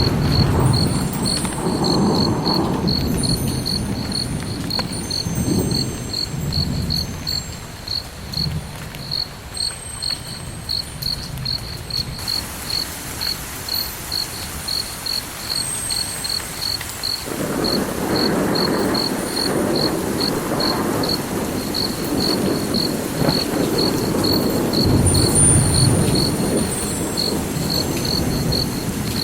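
Cricket chirping steadily, about two chirps a second, with low rumbling swells near the start and again through the second half.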